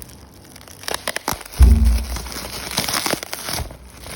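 Plastic parcel packaging crinkling and crackling as it is handled and opened, with a few sharp clicks and one loud, low thump about a second and a half in.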